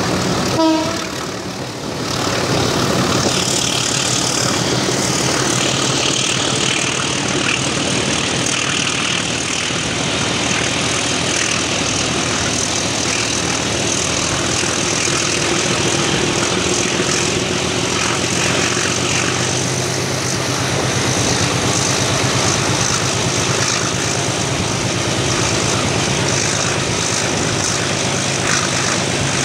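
Passenger train hauled by an Alco RSD-39 diesel locomotive running steadily, heard from on board: a continuous rumble of wheels on the rails and air rushing past, under a low steady diesel drone. A brief pitched note sounds about a second in.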